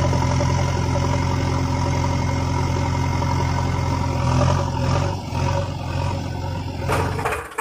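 Truck engine sound running steadily at a low, even idle. It cuts off abruptly near the end, giving way to quick clicking.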